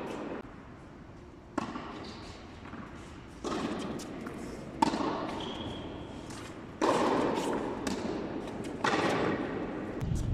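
Tennis ball being hit back and forth in a doubles rally: about five sharp racket and bounce impacts, a second and a half to two seconds apart, each echoing in a large hall.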